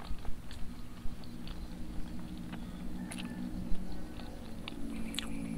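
Wet mouth sounds of a person eating with the hand: chewing, lip smacks and sucking sambal off the fingers, heard as a scattered run of small clicks.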